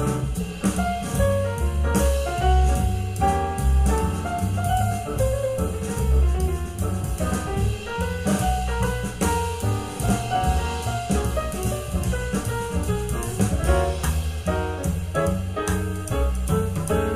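Jazz instrumental played back through a home-built speaker, a Fostex P1000K 10 cm full-range driver in a 9 mm all-steel enclosure, picked up by a measurement microphone about 2.5 m away in the room.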